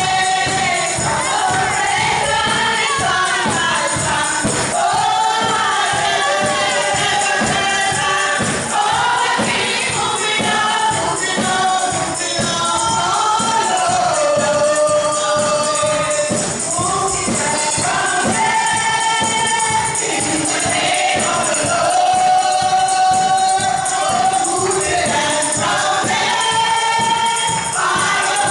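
A small group of women singing a gospel song together into microphones, with a tambourine keeping a steady beat.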